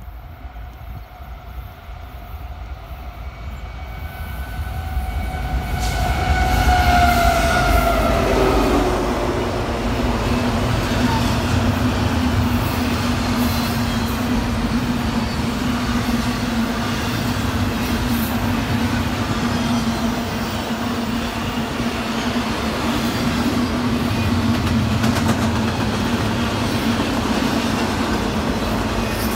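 A Norfolk Southern intermodal train led by an ES44AC and an SD70ACe locomotive approaches and passes. The locomotives grow louder over the first several seconds, with a pitched tone that falls as they go by. The intermodal cars then roll past with the steady noise of wheels on the rails and a steady hum.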